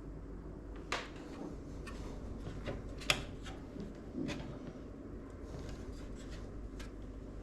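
Small clicks and taps from hands handling PC parts and the case, the sharpest about three seconds in, over a low steady hum.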